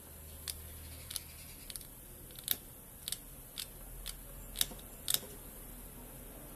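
Irregular light, sharp clicks and ticks, about a dozen, from a small circuit board and its wires being handled and worked on.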